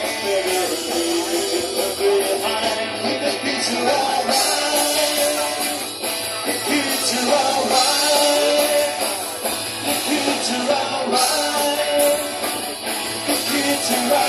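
Live rock band playing through a stage PA: a singer over guitars and keyboard with a steady beat.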